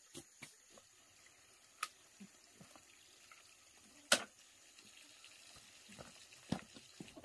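A few scattered light taps and knocks over a faint steady background, the loudest sharp knock about four seconds in and several more near the end.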